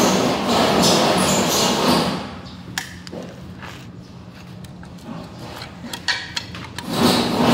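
Sharp metal clicks and taps of a hand punch and rivets being worked on a heavy-truck brake shoe. They sit between two stretches of loud steady rushing noise with a low hum, which drops away about two seconds in and returns near the end.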